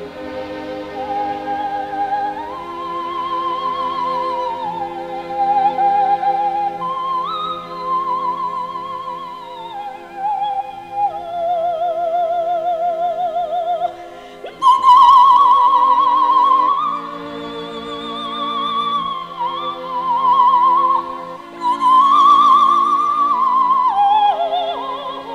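Music: a single high, wordless melody with strong vibrato, operatic in style, over sustained accompanying chords. It gets louder about halfway through and ends in a falling glide.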